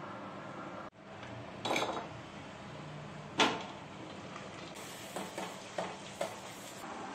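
Kitchen clatter of cookware: a short rattle, then one sharp knock of a pot or utensil about three and a half seconds in, then a few light clicks of a spoon against a pot as the food is stirred.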